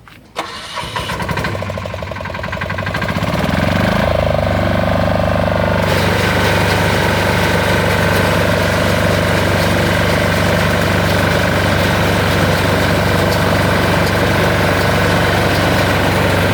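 Small diesel engine of an ISEKI RBX810 ride-on straw baler starting about half a second in, picking up over the next few seconds and then running steadily. About six seconds in a harsher, noisier layer joins the engine sound and carries on.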